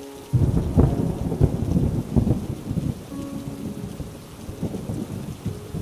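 A thunderclap over steady rain: it breaks in suddenly with a loud low rumble and several rolling peaks, then eases off to a quieter rumble under the rain.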